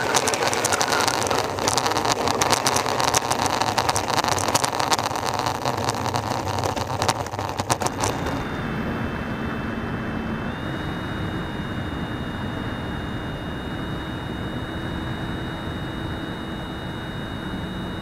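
A Freewing L-39 electric ducted-fan jet model on its takeoff roll, heard from onboard: a fan rush with rapid rattling and knocking from the landing gear over the rough runway. About eight seconds in, this cuts to a steadier, quieter whine with two high steady tones.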